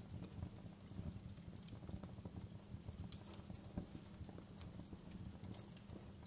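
Wood fire crackling in a fireplace: irregular small pops and snaps, with a sharper snap about three seconds in, over a low steady rumble.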